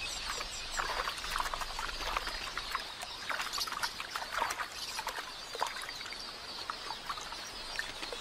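Water splashing in many irregular bursts as helmeted terrapins grab at drinking birds, over the high calling of a flock of red-billed quelea.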